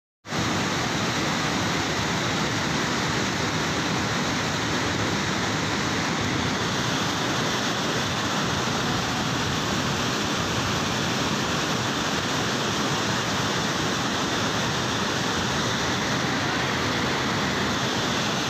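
Floodwater pouring from a dam's open spillway gates and churning in the spray below: a loud, steady rushing that cuts in a moment after the start.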